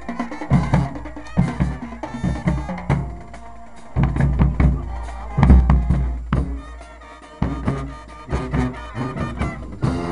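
Marching band drumline playing a fast cadence on snare drums and bass drums, with deep booming bass-drum strokes.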